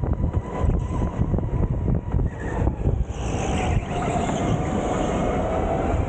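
Onboard sound of an electric go-kart at speed: a motor whine that shifts in pitch over a heavy rumble and rattle from the kart's chassis and tyres on the track. A hiss rises about three seconds in, as the kart takes a corner.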